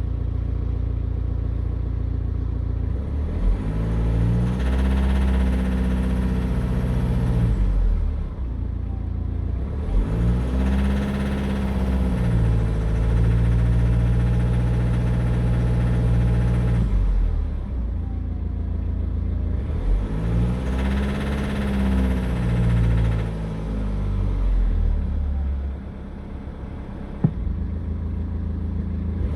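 Cold BMW N47 four-cylinder diesel running in gear against the brakes under light load, its revs climbing and holding three times and dropping back between, with a knock and slight misfire that the owner puts down to a failing, soot-clogged or sticking injector. A single sharp click near the end.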